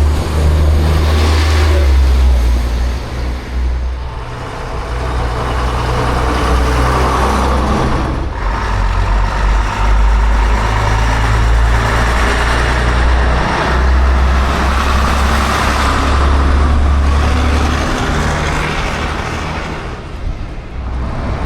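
Diesel engines of classic buses running and driving past, a heavy low engine sound that swells and eases several times as vehicles go by.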